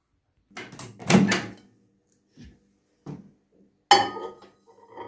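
Handling a plate at a microwave oven: a few dull knocks and a door sound in the first couple of seconds, then a sharp clatter about four seconds in as the plate goes into the microwave.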